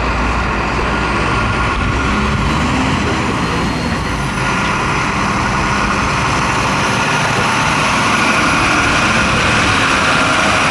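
A truck's engine running close by, a steady heavy drone with no change in loudness.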